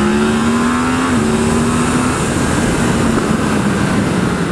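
Yamaha MT-10's crossplane inline-four engine pulling under hard acceleration, heard onboard; its note holds nearly steady for about two seconds, then a loud rush of wind noise takes over.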